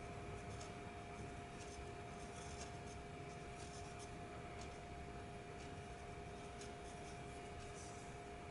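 Graphite pencil scratching on drawing paper in short, irregular sketching strokes, faint, over a steady two-tone hum.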